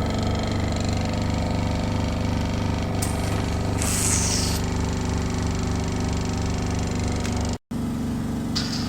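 Hydrodermabrasion facial machine's vacuum pump running steadily with a pitched hum during a facial treatment, with a brief hiss of suction about four seconds in. The sound cuts out for an instant near the end.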